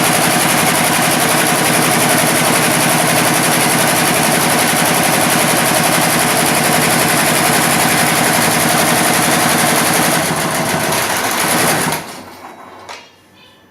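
Computerized embroidery machine stitching at speed, a rapid, steady clatter of needle strokes. It changes slightly about ten seconds in and stops about twelve seconds in, followed by a single click.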